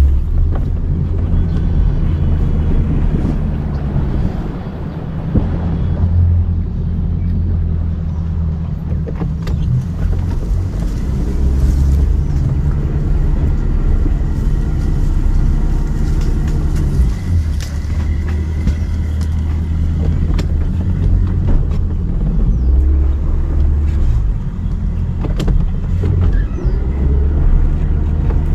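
Boat engine running at low speed, its low note shifting in strength every few seconds, with a few light knocks.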